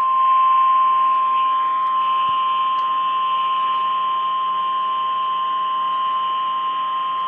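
NOAA Weather Radio's 1050 Hz warning alarm tone, one loud, steady, unbroken tone heard through a weather radio receiver. It signals that an emergency alert message is about to be broadcast.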